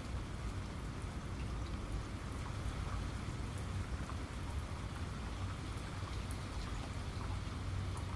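Steady rain falling, with a low rumble underneath and scattered sharp drops ticking through it.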